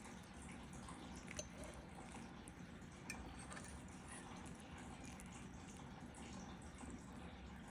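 Faint room tone: a low steady hum with two light clicks, about one and a half and three seconds in.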